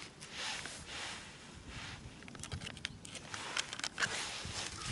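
Rustling and crinkling as a small plastic bag of gluten fishing bait and a padded jacket are handled, with a few sharp clicks in the second half.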